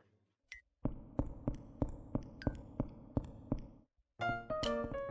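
Footsteps walking on a hard floor, an even run of about three steps a second, then stopping. Near the end, a light melody of piano-like notes starts.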